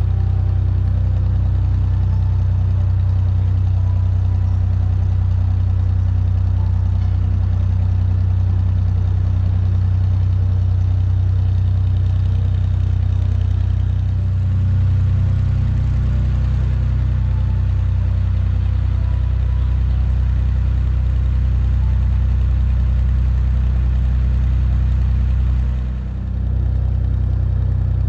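Dutch barge's inboard engine running steadily under way, with a deep, even note and a brief dip in level near the end.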